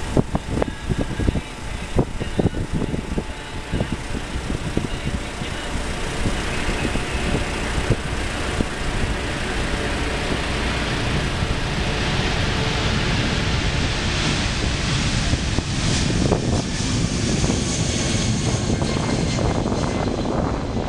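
Jet engines of an Airbus A300 freighter at takeoff power during its takeoff roll and lift-off: a continuous rushing roar that grows louder and brighter as the aircraft nears. A few irregular low thumps come in the first few seconds.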